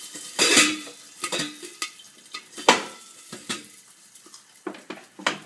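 Popcorn kernels in hot oil in a covered stainless saucepan, sizzling, with irregular clicks and metal clatters as the pan and its lid are shaken over the flame. The loudest clatters come about half a second and two and a half seconds in.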